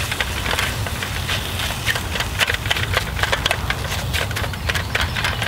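Utensil scraping and tapping in a carbon steel skillet as eggs are stirred and scrambled, many quick irregular clicks over a steady low rumble.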